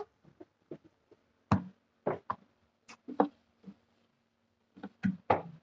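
Wooden bass-tube cabinet being handled and worked with adhesive, giving several irregular knocks and taps of wood on wood and on the floor.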